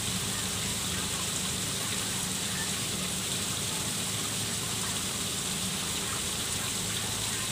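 Small garden-pond waterfall spilling over a rock ledge into the pond, a steady, even splashing.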